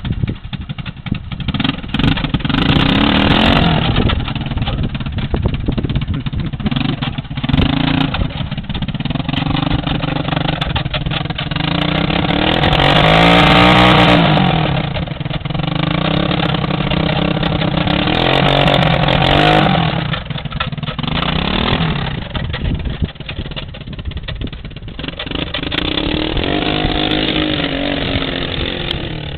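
Three-wheeler ATV engine revving up and dropping back in repeated surges as it is throttled and pushed to free it from a mud hole. The loudest, longest rev comes about halfway through. Near the end it drives off.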